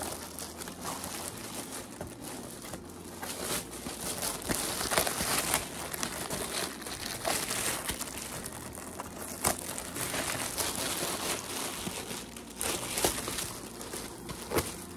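Gift packaging being crumpled and handled as a present is unwrapped: steady crinkling with frequent sharp crackles.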